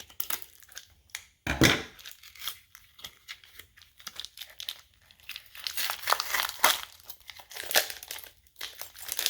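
Packaging of a new padlock being torn and crinkled open, with irregular crackles and clicks and one louder thump about one and a half seconds in.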